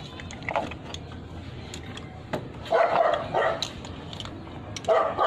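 A dog barking: a quick run of short barks about three seconds in and one more near the end, with scattered light clicks and knocks in between.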